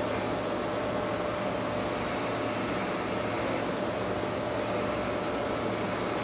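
Corded electric hair clippers buzzing steadily as they are run through short hair, with a brighter rasp that comes and goes twice as the blades pass through the hair.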